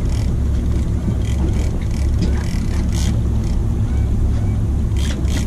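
Boat engine running steadily with a low rumble while the boat holds position during a tuna fight. A few brief sharp sounds come near the end.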